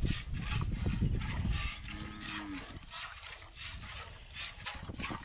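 Cow being milked by hand: milk squirting into a metal pail in short hissing spurts, about two to three a second. A low rumble fills the first second and a half, and a brief low tone sounds about two seconds in.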